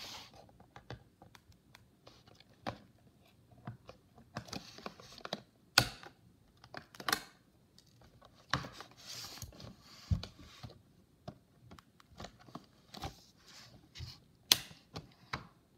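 Scissors snipping through plastic zip ties, giving sharp clicks every few seconds, amid rustling and scraping of cardboard and plastic packaging being handled.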